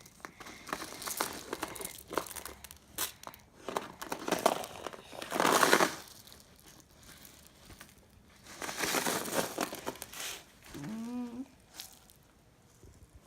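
Sand scraping and crunching as plastic toy construction vehicles are pushed through it, in irregular bursts with small clicks, loudest about halfway through.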